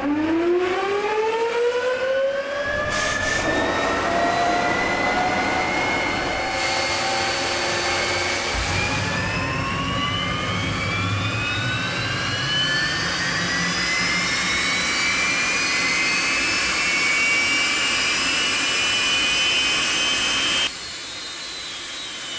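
Jet engine on a test rig spooling up: a loud whine with several tones climbing steadily in pitch for about twenty seconds. Near the end it drops in level and its pitch starts to fall.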